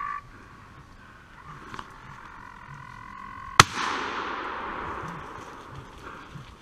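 A hound bays with long drawn-out cries. About three and a half seconds in comes a single loud gunshot from a hunting gun, its echo rolling away over about two seconds.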